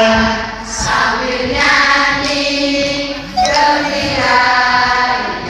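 A large group of voices singing a simple song together in unison, in short phrases of about a second each, as part of a group song-and-movement activity.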